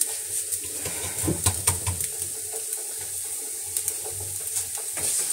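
Thin trid dough cooking on a hot flat griddle pan: a steady hiss with small crackles scattered throughout.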